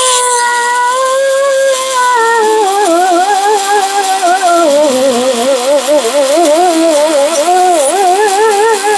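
A 3-inch cut-off wheel tool running with a high whine, its pitch dipping and wavering as the wheel is pressed against the metal to grind off rust.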